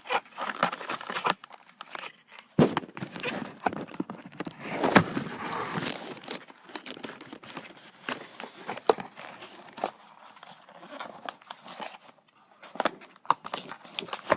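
Handling noise from the Set card game's box and cards: scattered clicks and taps, with a louder stretch of crinkling rustle about five seconds in.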